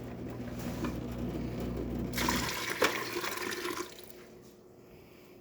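Water poured out of an espresso machine's removable water tank into a sink. The splashing pour is loudest for about a second and a half in the middle, then stops.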